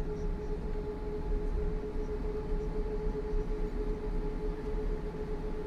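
Cabin noise of an Airbus A340-600 on the ground just after landing: a steady rumble from the airframe and its four Rolls-Royce Trent 500 engines, with a steady whine held on one pitch.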